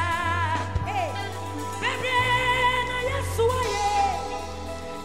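Live gospel worship music: a woman singing long notes with a wide vibrato into a microphone, backed by a live band with electric guitar, bass guitar and keyboards holding steady low bass notes.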